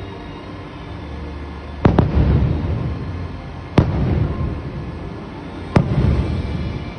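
Fireworks shells bursting: a quick pair of sharp bangs about two seconds in, then single bangs about four and six seconds in, each followed by a rolling rumble that dies away over a second or so.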